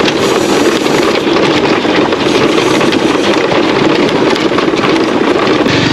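Bajaj Pulsar 150 motorcycle's single-cylinder engine running steadily while riding along a rough, stony dirt track: a steady drone under a dense hiss.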